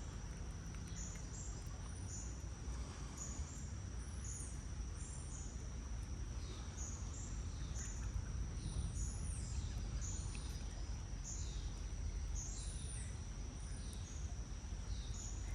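Outdoor ambience: an insect trilling on one steady high note throughout, with many short, high bird chirps repeating through it, over a low, even background rumble.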